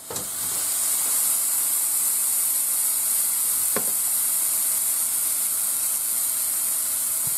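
Sous vide steak searing on a Kitchen HQ electric grill's metal grill plate, turned up to maximum: a steady, loud sizzle that starts suddenly as the steak is laid down with tongs. A single click about four seconds in.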